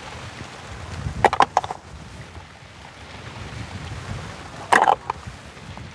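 Wind rumbling on the microphone, broken by two clusters of short, sharp bursts, one about a second in and one near the end.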